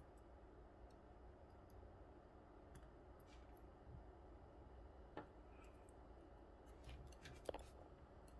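Near silence broken by a few faint, small metallic clicks and taps, a cluster of them near the end, as the tiny pins and springs of a disassembled lock cylinder are handled and set out.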